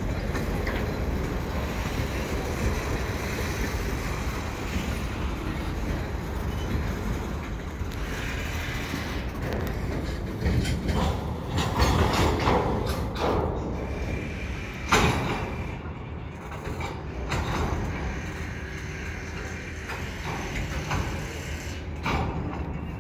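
Freight cars rolling slowly along a yard track during switching: a low, steady rumble with a few knocks, and a single sharp bang about fifteen seconds in.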